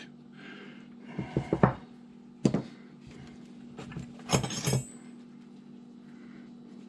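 Steel hand wrenches clinking and knocking together as they are handled: a few separate clinks, the cluster about halfway through ringing briefly.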